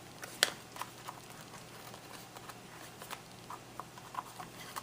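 Handmade paper photo folio being handled: light taps and rustles of cardstock pages and tags, with one sharp click about half a second in.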